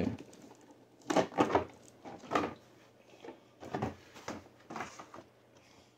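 Cardboard box packaging scraping and rustling, with light knocks, as an RC truck is handled and lifted out of its cardboard insert. There are several short bursts of handling noise about a second apart.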